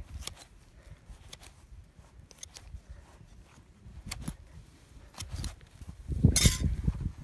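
Steel hoof nippers biting and snipping at a horse's hoof, a series of short sharp clicks every second or so. About six seconds in there is a louder scuffle of rustling and knocking.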